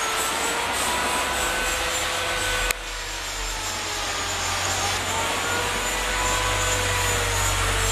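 Steady drone of a motor running, its pitch wavering slightly up and down, with a sharp click about two and a half seconds in, after which it runs a little quieter.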